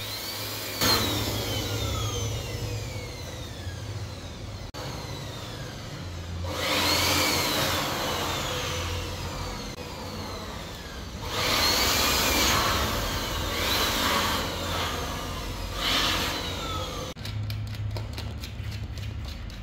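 Makita corded electric blower running, blowing through a PVC pipe nozzle to clear dust out of wall boxes. Its motor whine rises and falls in pitch several times as it surges louder and eases off. Near the end it gives way to quieter, short clicks.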